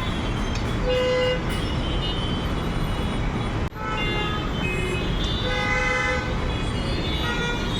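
Traffic jam street sound: many vehicle horns honking in short, overlapping toots over a steady rumble of engines and road traffic.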